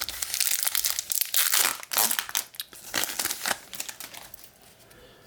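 Crinkling and tearing of a foil trading-card pack wrapper as it is ripped open and handled, in a run of crackly bursts that dies away near the end.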